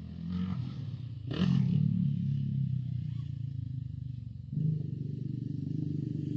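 ATV (quad bike) engine running, with a short loud rush of noise about a second and a half in and a step up in the engine note about four and a half seconds in.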